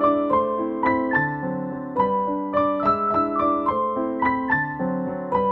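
Background piano music: a gentle melody of evenly paced notes, about three or four a second.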